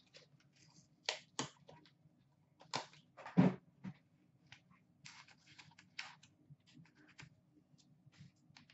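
Hands opening a cardboard box of hockey trading cards: scattered clicks and cardboard rustles, with one louder thump about three and a half seconds in.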